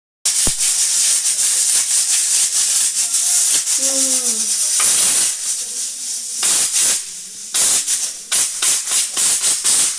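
Pressure cooker whistle venting steam: a loud, high hiss for about five seconds, then breaking into a quick run of short spurts of steam.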